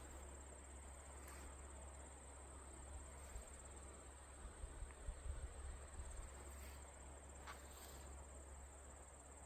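Faint, steady high-pitched trilling of insects, continuous throughout, over a low rumble on the microphone with a few soft bumps around the middle.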